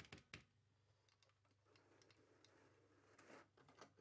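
Near silence: room tone with a few faint clicks, two of them close together right at the start.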